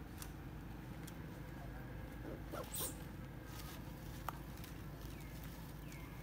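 Baby macaque giving a few short high cries about two and a half seconds in, with a single sharp click a couple of seconds later.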